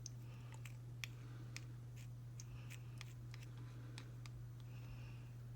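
Faint, irregular light clicks and taps of small plastic miniature pieces being handled and pressed together, over a steady low hum.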